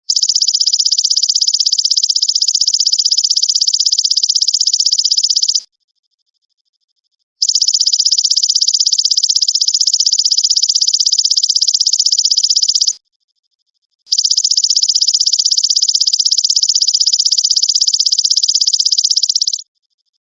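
Belalang emas (golden grasshopper) singing: three long, high-pitched, rapidly pulsing trills of about five and a half seconds each, with short pauses between them.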